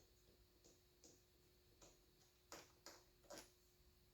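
Near silence, with a few faint, irregular clicks, the clearest in the second half.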